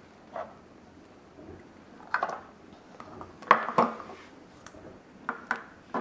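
Plastic Play-Doh toy pieces and pots knocking and clicking against each other and the wooden table as they are handled and set down: a few sharp clacks, loudest in the middle.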